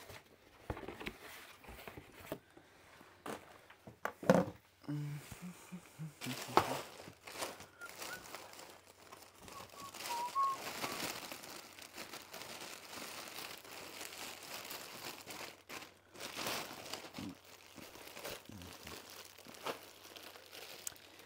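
Plastic packaging crinkling and cardboard rustling as a parcel is unpacked by hand, with many small clicks and taps. Two sharp knocks stand out, about four and six and a half seconds in.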